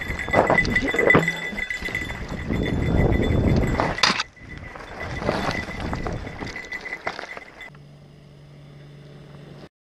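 Mountain bike riding fast down a rough dirt singletrack, heard from a helmet camera: rush of wind and clattering of the bike over the bumps, with a sharp knock about four seconds in. Near the end it gives way to a much quieter steady low hum.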